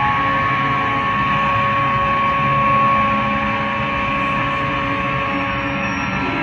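Droning noise music: a steady, dense wash of sound with a few long held tones and no beat.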